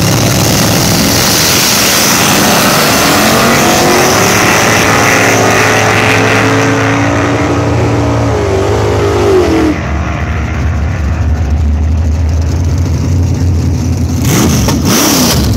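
Supercharged, twin-carbureted Ford Falcon drag car making a loud full-throttle pass down the drag strip, its engine note climbing in pitch in steps through the gears as it pulls away, with a second car racing in the other lane. The sound thins and drops off about ten seconds in as the cars reach the far end.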